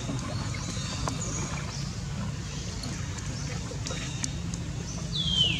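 Baby long-tailed macaque giving a single high-pitched cry that slides down in pitch near the end, over a steady low outdoor rumble with a few faint high chirps.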